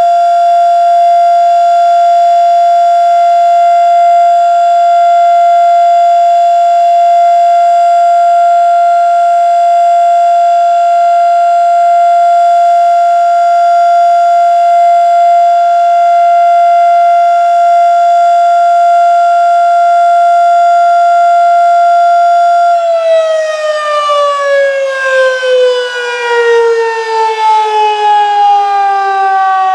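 Federal Signal Model 3 electromechanical tornado siren sounding a steady alert tone, the signal of a test. About 23 seconds in it starts winding down: the pitch falls steadily and the loudness wavers.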